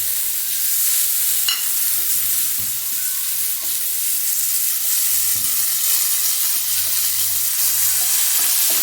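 Onions frying in hot oil in a pan and being stirred, a steady sizzling hiss, with one sharp knock of the utensil against the pan about a second and a half in.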